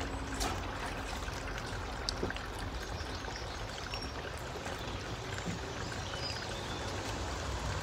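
Water pumped from a bowser running steadily out of a hose into a partly filled pond lined with rubber sheet, as the pond fills, with a few faint clicks over it.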